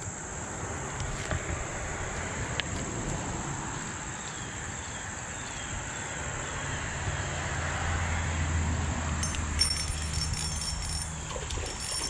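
Steady high-pitched buzz of insects, with a low hum underneath that grows louder past the middle and a few faint ticks.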